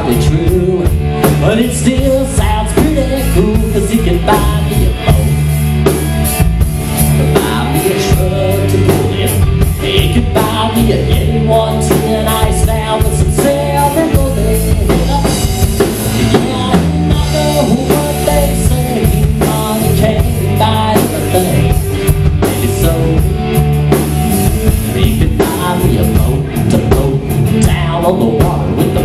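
Live rock band playing: electric guitar, electric bass and drum kit through amplifiers, with a steady beat.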